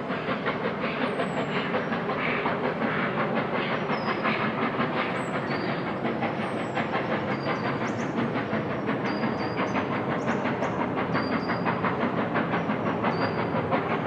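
Steam-hauled train of empty coaches running past, behind LMS Stanier Black Five 4-6-0 No. 44932: a steady rhythmic clatter and exhaust, about three beats a second, with some hiss of steam.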